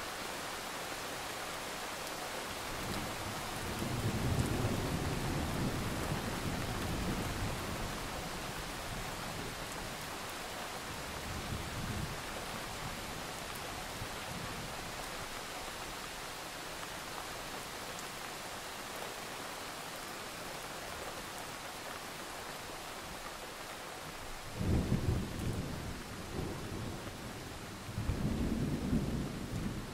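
Steady rain with low rolls of thunder: a long roll about three to eight seconds in, a short one around twelve seconds, and two more near the end.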